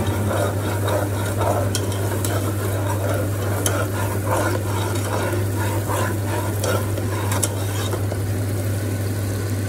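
Rice frying in hot oil in a stone-coated pot, stirred with a slotted spatula: a steady sizzle with scattered scrapes and taps of the spatula against the pot, over a steady low hum.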